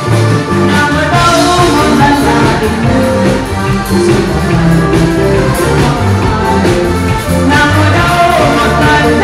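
Loud, upbeat dance music with a singing voice, playing without a break.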